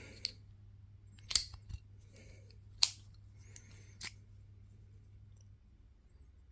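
Four sharp metallic clicks, spread a second or so apart, with light scraping between them, from a padlock and lock picks being handled. A low steady hum underneath stops near the end.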